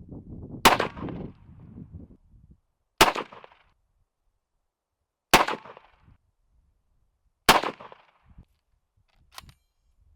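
1891 Carcano bolt-action long rifle firing four shots about two seconds apart, each followed by a short echoing tail. A fainter sharp click comes near the end.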